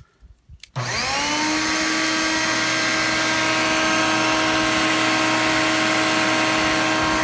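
Electric air-mattress inflator pump switching on about a second in, its motor spinning up quickly to a steady whine over a hiss of rushing air. It is blowing air through the forge's perforated air pipe under the burning coals.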